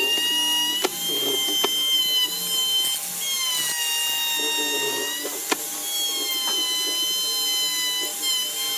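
Background music with long, sliding melodic notes, over the quieter running of a hollow-chisel mortising machine boring into wood. A few sharp clicks come through.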